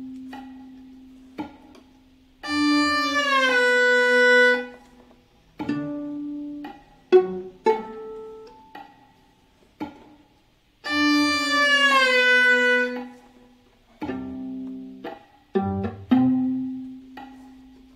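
Viola playing a slow tango line: single plucked notes alternating with two sustained bowed, slurred phrases, each sliding down in pitch, around three and eleven seconds in.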